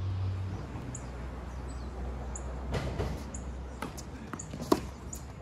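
Tennis ball struck by a racket with one sharp pop about four and a half seconds in, after a softer hit or bounce around three seconds in, with light footsteps on a hard court over a low steady rumble.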